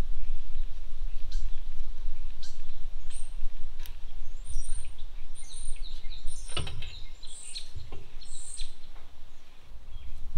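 Small birds chirping in short, high calls, over a steady low rumble, with a few scattered sharp clicks and knocks.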